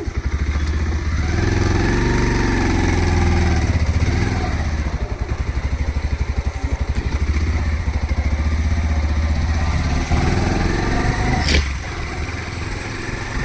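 Motorcycle engine running under way, its pitch rising and falling. A sharp click comes near the end, after which the sound is quieter.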